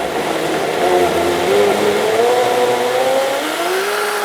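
HealthMaster blender motor running at high speed, churning a full pitcher of vegetables for soup. Its whine steps up in pitch about three and a half seconds in as the speed is raised toward level 8, then holds steady.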